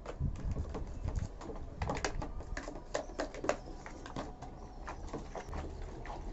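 Irregular clicks, taps and scrapes of hard plastic washing-machine tub parts being handled and scrubbed with a brush.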